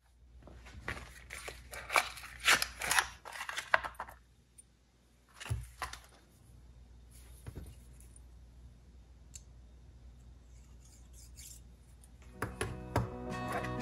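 Quick clicks, rattles and small knocks of a new spark plug and its cardboard packaging being handled, then a single knock and a few faint ticks as a spark plug gap gauge is picked up. Guitar background music comes in near the end.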